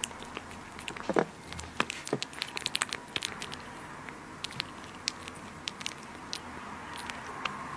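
A kitten lapping soft food from a plate and then licking its lips: quick wet clicks and smacks, densest in the first three seconds, then sparse.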